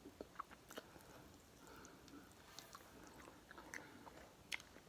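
Faint chewing of chicken wings close to the microphone, with scattered small wet mouth clicks.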